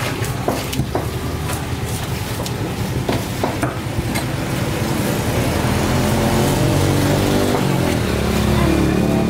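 Large knife scraping the scales off a trevally on a wooden chopping block, a run of short scrapes and clicks. A motor vehicle engine runs nearby, growing louder from about halfway until it covers the scraping.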